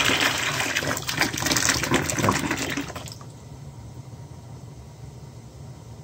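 Boiler water rushing out of the low-water cutoff's blowdown ball valve, a loud gushing hiss that stops suddenly about three seconds in as the valve is shut, leaving a low hum. This is a blowdown of the probe-type low-water cutoff, draining it to test that the low-water light trips.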